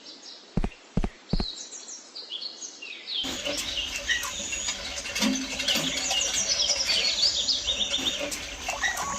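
Birds chirping in quick, trilled calls that grow fuller and busier from about three seconds in. Three short knocks, about half a second apart, come in the first second and a half.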